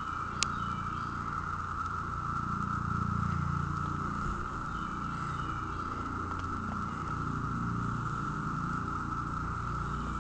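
An unidentified steady, high-pitched drone, like a constant alarm tone, holding one pitch, over a low rumble. There is one sharp click about half a second in.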